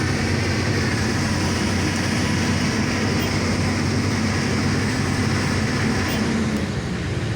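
Hydraulic excavator's diesel engine running steadily; its pitch drops slightly about six seconds in.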